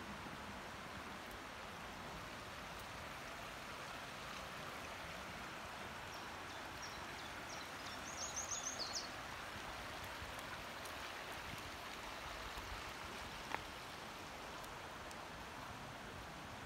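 Steady rush of a rocky woodland stream. About eight seconds in, a bird sings a short run of high, quickly repeated notes, and later there is one brief sharp click.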